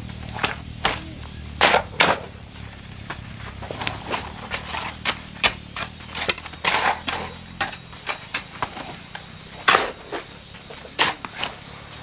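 Metal shovel scooping, slapping and scraping wet concrete into a rebar-reinforced slab form: irregular wet thuds and scrapes with a few sharper, louder strikes.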